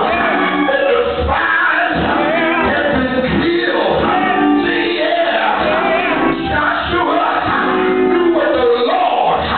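Church music: singing voices over instrumental backing with a steady low beat.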